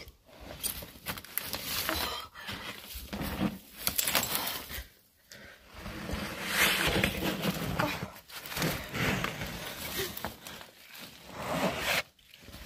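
Irregular scuffing and rustling of someone climbing through a narrow rock crevice: feet on grit and rock, clothing and a backpack brushing the rock walls, in uneven bursts with short pauses.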